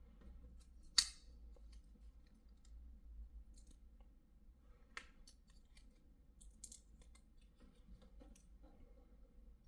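Small parts of an SSD enclosure kit handled by hand: a sharp click about a second in, a smaller click near five seconds, a short scrape a little later, and light ticks and taps between.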